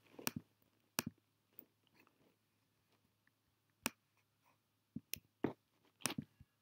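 A handful of faint, sharp clicks at irregular intervals, with a quick cluster of them in the last couple of seconds and near-quiet in between.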